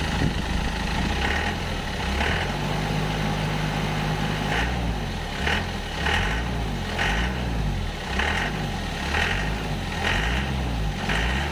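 Isuzu truck engine running steadily while a newly fitted alternator is checked for charging. A short high beep repeats about once a second.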